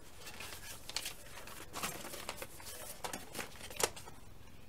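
Paper instruction sheets of a plastic model kit rustling and crinkling as they are picked up and leafed through, with a few sharper crackles, the loudest near the end.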